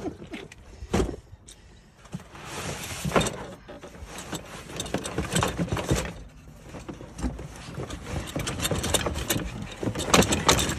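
Hands rummaging through a cardboard box of odds and ends, with irregular knocks, clatters and rustling as objects are shifted.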